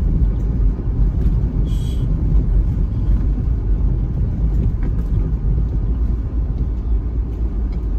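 Inside a car driving slowly over a dirt track: a steady low rumble of tyres and engine, with a few faint clicks and rattles.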